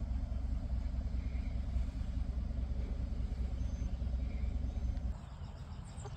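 2018 GMC Sierra pickup's engine idling: a steady low rumble that drops off about five seconds in.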